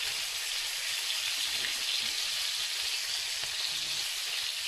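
Chicken thighs sizzling steadily as they fry in a frying pan.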